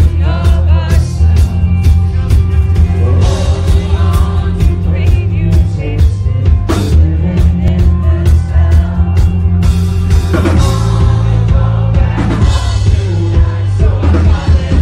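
Live rock band playing loudly: a singer's voice over a drum kit and guitar, with heavy bass.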